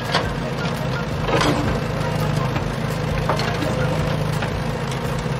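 Steady engine rumble of a cartoon construction vehicle at work, with a few short knocks and crunches: one just after the start, a louder one about a second and a half in, and a smaller one a little past three seconds.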